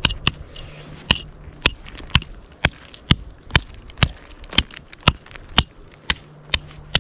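Small hatchet chopping into river ice in steady, sharp strikes about two a second, chipping out a test hole to check the ice's thickness.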